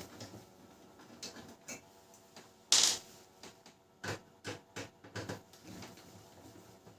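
Irregular clicks and knocks of a Canon LBP6030 laser printer's plastic side cover being worked open by hand, with one louder, longer burst of noise about three seconds in and a quick run of clicks a little after four seconds.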